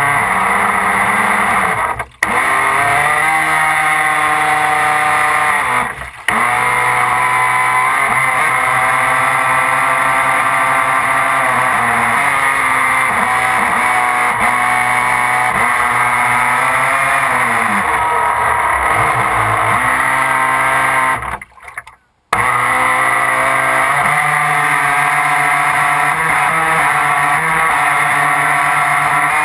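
Radio-controlled speedboat's motor and propeller heard from on board, running with its pitch rising and falling as the throttle changes. It cuts out briefly about two seconds in and again about six seconds in, and for about a second around twenty-two seconds in.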